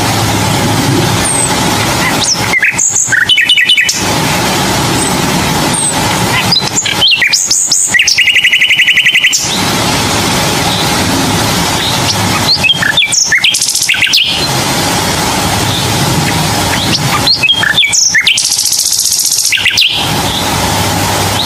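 Bird chirps and calls in several short bouts, one with a fast buzzy trill, between stretches of steady noise.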